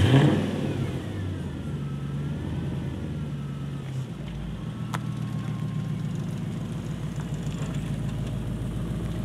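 Lexus LS400's 4.0-litre V8 just after starting: a brief flare of revs that drops within about a second to a steady idle. A faint sharp click comes about halfway through.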